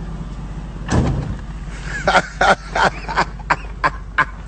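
A dog barking in a quick run of short, sharp barks, about three a second, starting about two seconds in. A single heavier thump comes about a second in.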